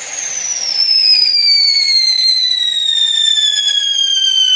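Whistle stage of a ground whistle-to-salute firework: a loud, piercing scream that sinks slowly and steadily in pitch as the whistle composition burns down. This is the build-up that ends in the salute's bang.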